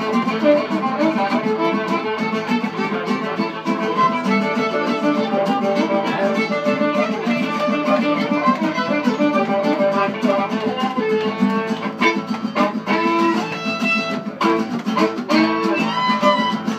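Country band playing an instrumental passage with no singing, with a steady beat.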